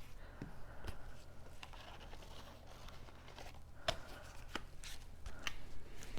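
Cardstock being handled: quiet rustling of paper with a few sharp light taps and clicks as the pieces are folded and pressed into place.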